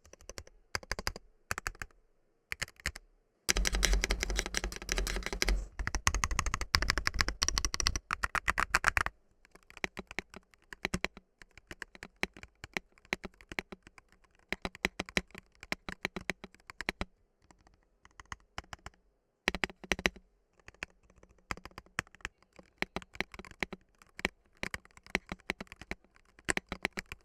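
Typing on a stock Higround BLACKICE Base 65 mechanical keyboard, straight out of the box: key clicks, a few scattered strokes at first, then a loud fast burst of typing for several seconds, then steadier typing at a moderate pace.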